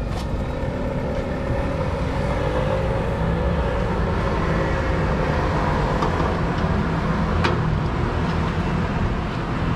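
Steady traffic rumble with a vehicle going past, and a single sharp click about seven and a half seconds in.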